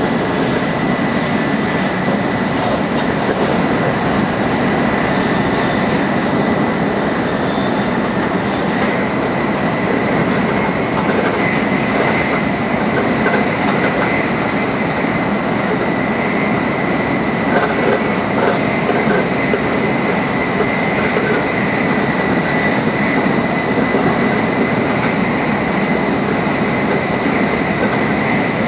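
Tokaido Shinkansen Nozomi bullet train running at full speed: a steady rumble of wheels and rails with a constant high whine over it.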